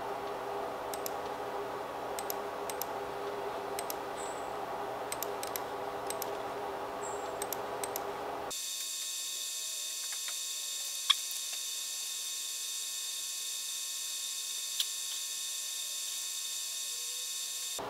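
Steady electrical hum with a few faint computer mouse clicks. About eight and a half seconds in, the sound changes abruptly to a thinner, high-pitched electronic whine, and two sharp single clicks follow.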